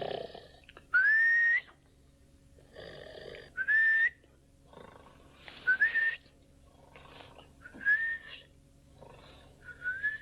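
Snoring with a high whistling note on each breath, about five breaths roughly two seconds apart, each whistle rising slightly in pitch.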